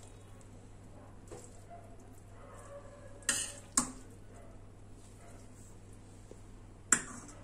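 Metal spoon scraping and clinking against a stainless steel kadai while cooked okra is spooned into a small steel serving bowl: a faint knock early, a short scrape and a sharp clink a little after the middle, and the loudest clink, ringing briefly, near the end.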